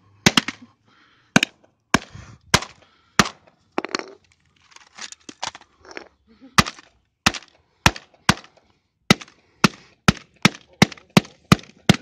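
A long metal bar striking the broken pieces of an Asus Transformer Book laptop-tablet on asphalt: a run of sharp hits, roughly two a second and quicker near the end, with some crunching between blows.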